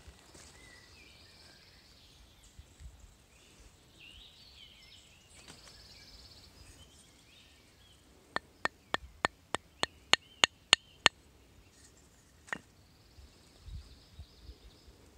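About ten sharp wooden taps, roughly three or four a second, and one more a moment later: the wooden hearth board of a friction-fire set is being tapped to knock the coal out of its notch.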